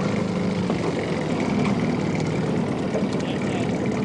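Boat engine running steadily at low speed.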